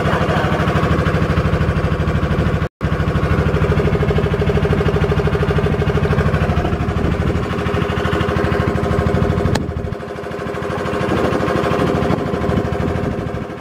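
Small wooden river boat's engine running steadily, a fast even chugging. It cuts out for an instant about three seconds in and drops in level about ten seconds in before rising again.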